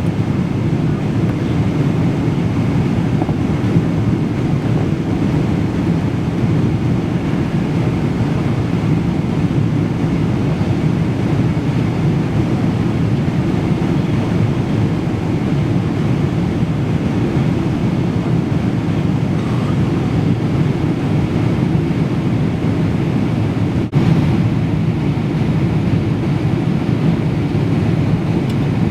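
Steady roar of a jet airliner's engines and rushing air heard from inside the passenger cabin, broken for an instant about three-quarters of the way through.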